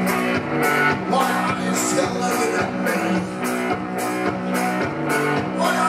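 Live blues-rock duo playing: an Epiphone hollow-body electric guitar over a drum kit keeping a steady beat of about two hits a second.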